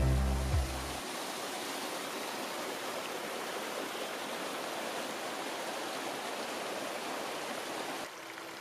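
Small mountain stream rushing and splashing over rocks, a steady, even rush of water. Background music fades out within the first second, and the water sound drops a little quieter near the end.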